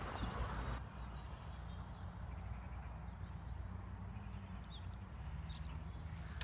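Quiet outdoor ambience: a low steady rumble with a few faint, short bird chirps about three to four seconds in.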